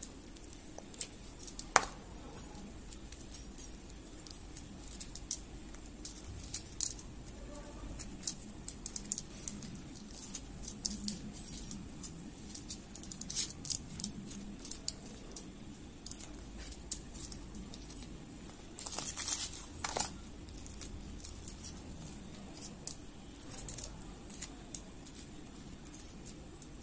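Light, scattered clicks, taps and scrapes of a small knife and fingertips on a glass cutting board as green chillies are slit open and their seeds scraped out, with a denser run of clicks about two-thirds of the way in.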